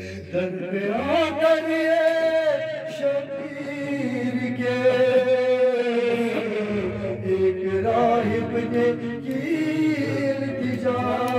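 A man singing a manqabat, an Urdu devotional poem in praise of Imam Ali, unaccompanied, in long drawn-out notes that glide up and down.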